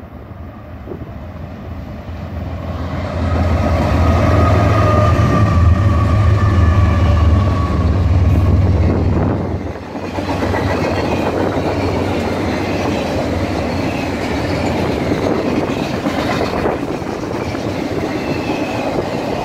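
A double-stack container freight train passing close by. First comes the deep, steady drone of its diesel locomotives, building to a peak. Then, about halfway through, the steady rumble and clatter of the loaded container well cars rolling past takes over.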